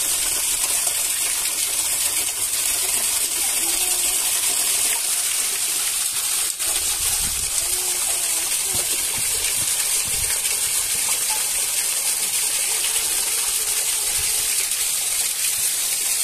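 Steady rushing hiss of running water, with one faint click about six and a half seconds in.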